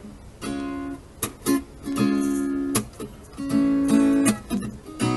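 Acoustic guitar being strummed: a run of chords in a stop-start rhythm, some left ringing and others cut short.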